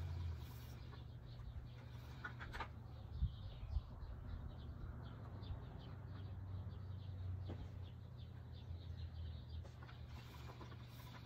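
Wooden spinning wheel turning while wool is spun, with faint repeated squeaks and ticks and two soft knocks about three seconds in, over a low steady hum.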